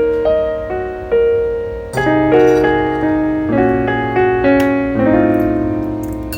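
Background piano music: gentle chords and single melody notes, each struck and left to fade, with a low bass note joining about two seconds in.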